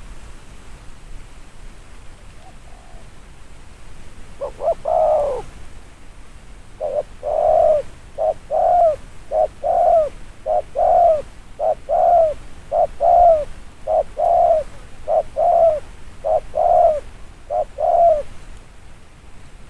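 Spotted dove giving a long run of short, evenly spaced coos, about one and a half a second, after a couple of opening notes; the rapid 'gù' cooing that dove keepers value.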